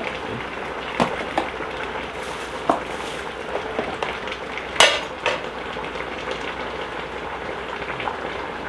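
Metal spoon stirring a stainless steel pot of simmering stew, clinking against the pot a few times, loudest about five seconds in, over a steady bubbling hiss from the pot.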